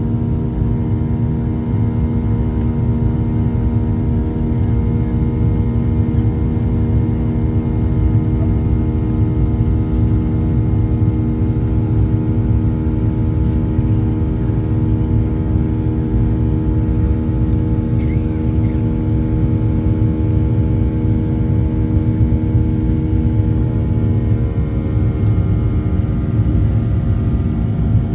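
Cabin noise of a Boeing 737-700 climbing after takeoff: the steady rush of its CFM56 turbofan engines with several steady humming tones over it. A single short click about 18 seconds in, and the tones shift slightly near the end.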